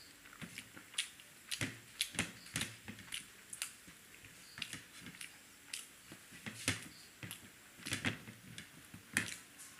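Close-miked eating: irregular sharp mouth clicks and smacks of chewing onion paratha, about two or three a second, with the soft tearing of the flatbread by hand on a plastic plate.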